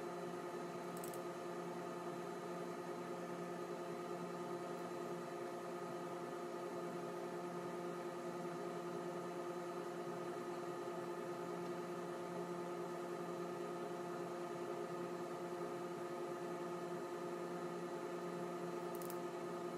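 A steady hum of several held tones that does not change.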